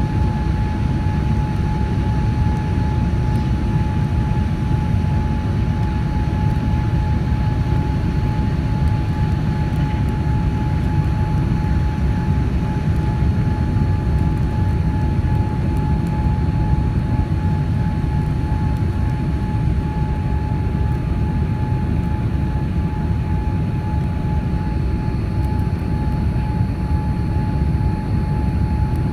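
Cabin noise inside a Boeing 787-9 Dreamliner: a steady, even low rumble of engines and airflow, with a steady high whine running through it.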